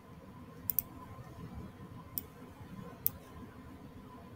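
Computer mouse button clicks: a quick double click, then two single clicks, over faint background hiss with a thin steady hum.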